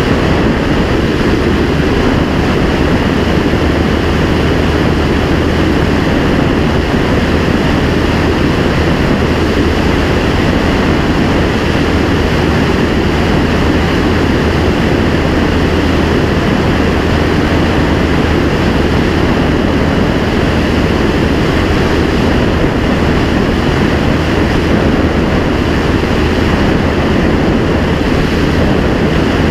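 Continental C-90 four-cylinder air-cooled engine and propeller of a clipped-wing Cub running steadily in flight, mixed with a rush of wind over the outside microphone.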